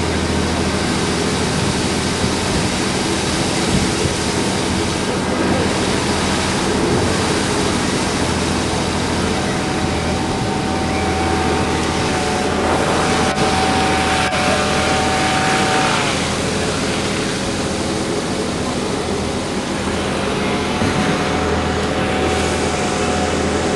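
Open-top double-decker bus's diesel engine running as the bus goes downhill, heard from the open upper deck with heavy wind rushing over the microphone. A steady whine joins in about ten seconds in and again near the end.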